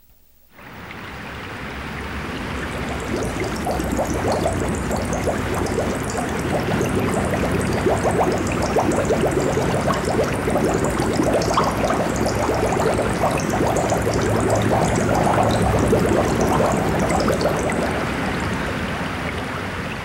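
A dense rushing noise with fine crackling through it, fading in about half a second in and building over the first few seconds, then holding steady.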